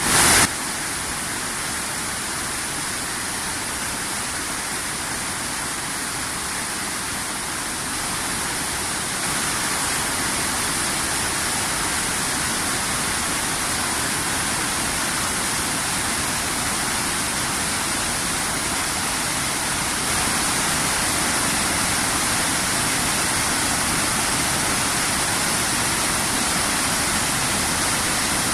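The Rhine Falls heard at close range: a steady, loud rush of falling water. A brief louder burst comes right at the start, and the level steps up slightly a few times.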